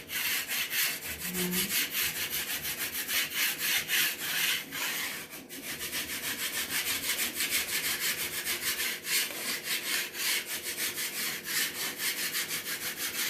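Hand scraping of a wall, old paper and putty being scraped off in quick repeated strokes, several a second.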